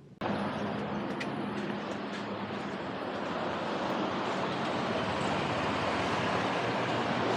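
Steady rushing noise of a moving vehicle, starting abruptly and growing slightly louder.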